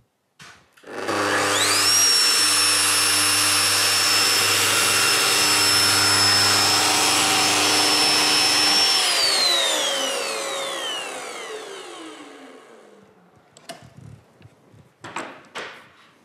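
Festool PF 1200 aluminium composite milling machine spinning up with a quickly rising whine, running steadily while milling a groove into an aluminium composite panel along its guide rail, then switched off, its whine falling as the cutter coasts down. A few knocks near the end as the machine is handled.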